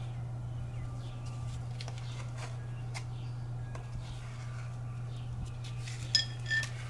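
Light clicking and tapping of hand tools, with two short ringing metallic clinks near the end, over a steady low hum.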